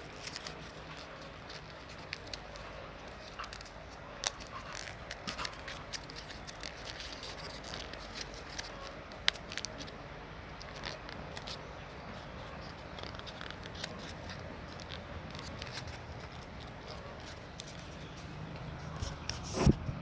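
Paper being handled and worked: scattered small crackles and clicks of paper, with a louder knock near the end.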